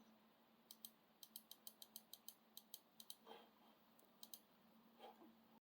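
Near silence broken by faint, sharp clicks in short quick runs, about seven a second, from working the laptop's controls while stepping through BIOS menus.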